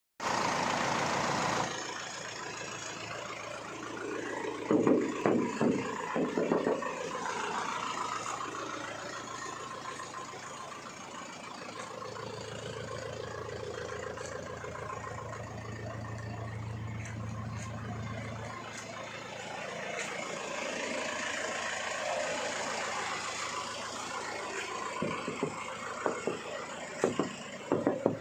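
A 2.5-litre direct-injection diesel engine in an Isuzu Panther idling steadily. Scattered knocks and clicks from handling come up around it a few seconds in and again near the end.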